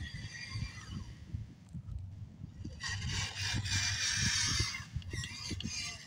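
Small electric motor and gear drive of an FMS 1/12 Suzuki Jimny RC trail truck whining as it drives through mud ruts. The whine wavers in pitch and is loudest for a couple of seconds in the middle. Wind rumbles on the microphone underneath.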